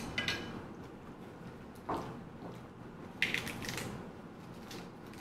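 Table sounds while eating: a click of chopsticks against a ceramic plate at the start, a duller knock about two seconds in as a ceramic bowl is set down on a wooden table, and a crisp crackle of fresh lettuce leaves being torn apart a little past three seconds in.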